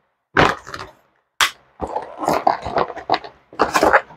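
Cardboard toy packaging and a clear plastic sleeve being handled and pulled apart: crinkling and rustling in several irregular bursts, with a sharp crackle about a second and a half in and a longer stretch of rustling in the middle.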